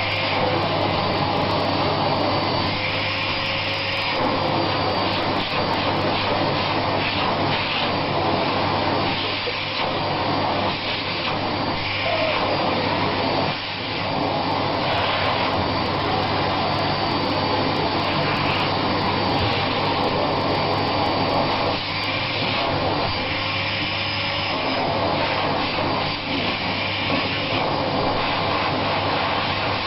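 A vacuum cleaner running continuously, its nozzle drawn over a cat's fur to groom it. A steady low hum runs under a rush of air that keeps swelling and easing as the nozzle moves.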